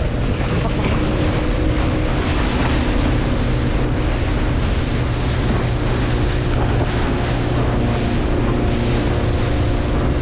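Aluminium boat under way at speed: the engine runs steadily under a rush of water along the hull, with wind buffeting the microphone.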